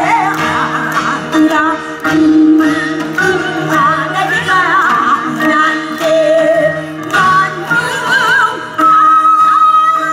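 Korean traditional gugak music: sustained melodic lines that bend and waver with wide vibrato over held tones, with sharp struck beats marking the rhythm.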